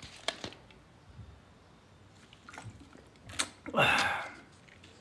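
A few faint clicks, then about four seconds in a man lets out a loud, breathy sigh lasting about half a second.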